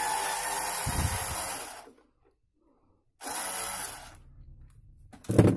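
Cordless screwdriver motor running as it backs a screw out of the particle-board shelf. It stops about two seconds in and runs again briefly a second later. A short loud thump comes near the end.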